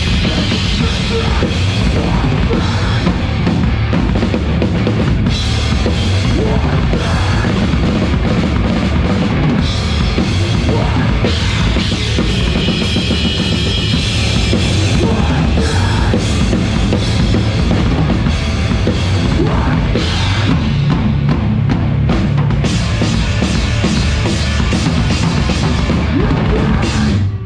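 Drum kit played fast and hard, bass drums and cymbals, within loud live heavy rock band music. It cuts off abruptly at the very end.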